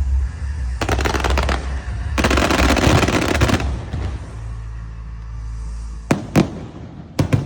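Fireworks going off: two bursts of rapid, dense crackling, then a few sharp separate bangs near the end.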